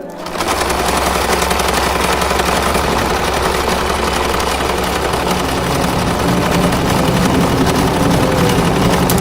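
A loud, rapid mechanical rattle over a low hum, starting suddenly and running on steadily.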